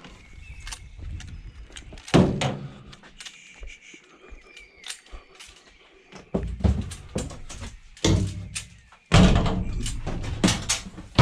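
Scrap metal being handled and moved, with clanks, knocks and several heavy thuds, the loudest about two, six and a half, eight and nine seconds in.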